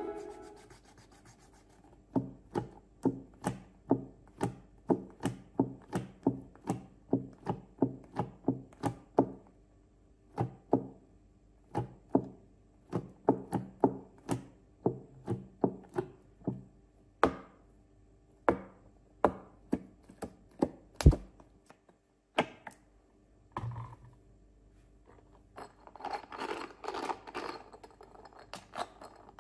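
A run of sharp chopping knocks, quick and regular at about three a second for several seconds, then sparser, with one louder sharp hit past the middle and a stretch of crunching near the end.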